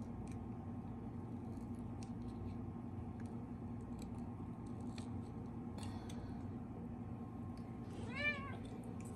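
A cat meows once near the end, a short call that rises and falls in pitch, over a steady low hum.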